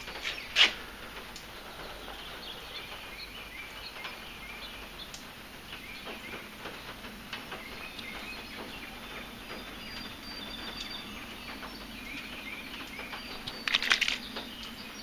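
Steady background ambience with birds chirping faintly now and then. A single sharp knock comes about half a second in, and a short clatter of handling noise comes near the end.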